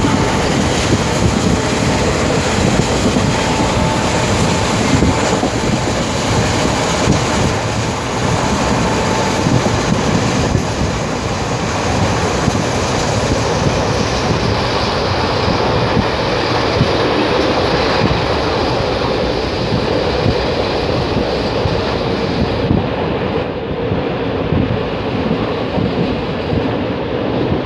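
Train running at speed, heard from inside a coach at the window: a loud, steady rumble and rattle of the wheels on the rails.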